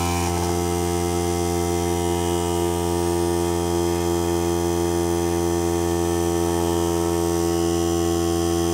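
Air compressor running steadily as it fills its tank: a loud, even hum that holds one pitch throughout.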